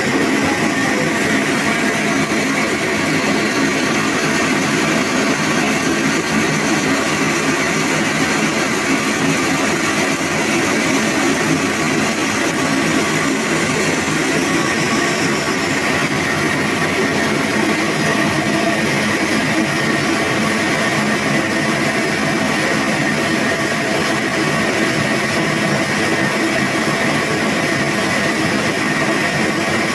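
Sawmill saw running steadily with a constant whine and noise, typical of a log being cut.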